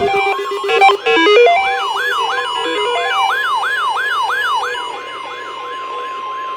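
Weather alert radios sounding for a tornado warning, several at once. Stepped electronic beeps in the first second and a half, then a siren-like whoop repeating about three times a second, and about two seconds in the steady 1050 Hz weather radio warning tone joins it.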